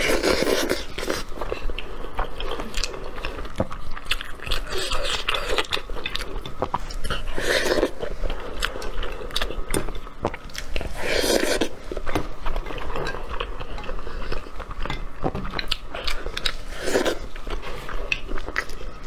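Close-miked eating sounds: wet chewing and biting of braised sheep's head meat, with many small clicks and a few louder bursts spread through.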